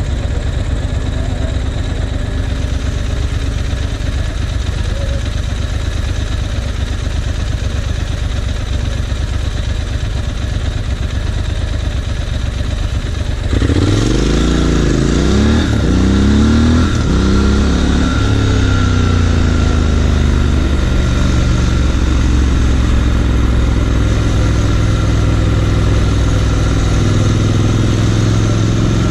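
Triumph Scrambler 1200XE's 1200 cc parallel-twin engine running with a low, steady note. About halfway through it is opened up: it gets louder and its pitch rises and drops several times as the bike accelerates through the gears, then it runs on steadily at a higher pitch.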